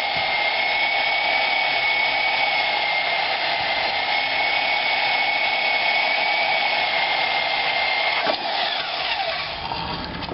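Bandsaw running and cutting through steel angle iron, a steady whine with a high tone. About eight seconds in there is a click and the saw winds down, its pitch falling.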